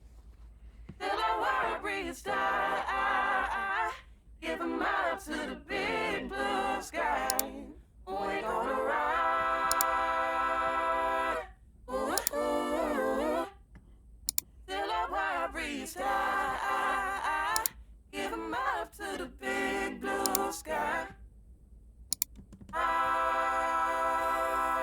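Solo sung vocal with no accompaniment, heard as a series of short phrases with brief gaps between them. Some notes slide in pitch, and a few are held steady for about two seconds, the longest about halfway through.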